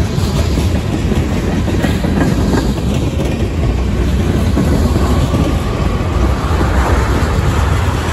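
Freight train of tank cars rolling past close by: a steady rumble of steel wheels on the rails, with a few faint clacks.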